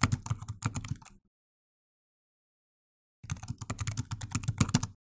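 Rapid computer keyboard typing in two runs of keystrokes. The first lasts about a second and a half at the start, then there is a gap of silence, and a second run of about two seconds comes near the end.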